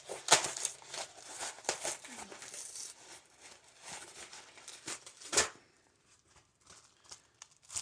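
Shipping packaging being torn and crinkled open by hand: irregular rustling and ripping, ending in one sharper rip about five and a half seconds in.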